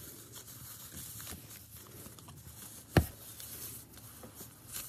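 Quiet rustling and handling of cloth as a costume's leg wraps and ribbon are worked at, with one sharp knock about three seconds in.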